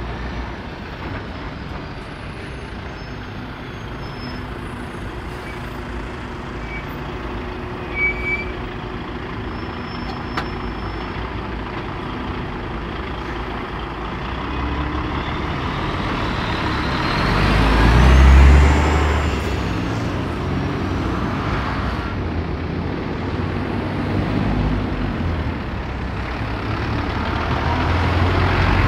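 Road traffic driving past: diesel lorries and vans. A DAF XF articulated lorry passes close about two-thirds of the way through, the loudest moment, a deep engine rumble with a high whine rising and falling over it. Another truck draws near at the end.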